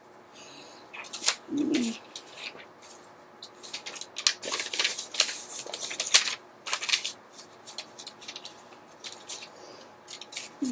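Colouring tool scratching and rubbing on paper in irregular strokes, with small taps and clicks; the strokes are busiest in the middle. A short low hum of a voice about one and a half seconds in.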